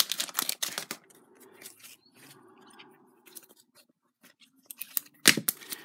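A stack of football trading cards handled in the hands, the cards slid and flicked against each other: a run of crisp clicks and scrapes in the first second, a faint rustle after that, and more sharp clicks about five seconds in.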